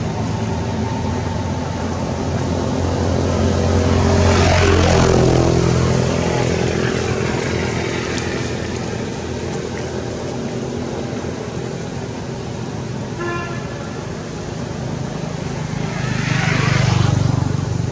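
Road traffic: a steady motor-vehicle engine hum that swells twice as vehicles pass, about four seconds in and again near the end, with a brief pitched tone, like a short horn toot, about thirteen seconds in.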